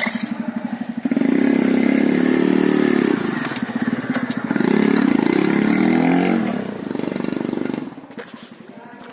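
TVS Radeon's 110 cc single-cylinder four-stroke engine opened up about a second in, rising in three loud surges, then dropping back much quieter near the end.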